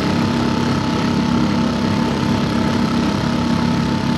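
2021 Mercury 2.5 hp four-stroke outboard motor running steadily under way, pushing a fishing kayak, with an even hum that holds one pitch.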